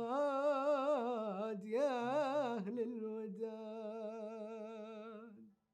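A singer in the Bahraini sawt style draws out the final syllables of a sung line in long, ornamented notes with wavering turns. The voice fades and stops about five and a half seconds in.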